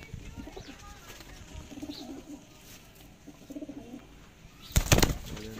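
Domestic pigeons cooing: a few short, low coos repeated every second or so. Near the end there is a brief, loud burst of noise.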